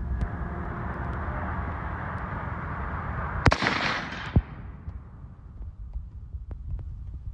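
A single .308 rifle shot about three and a half seconds in, a sharp crack followed by about a second of echoing ringing. A second, duller knock follows about a second after the shot. A steady rushing background noise runs up to the shot and fades after it.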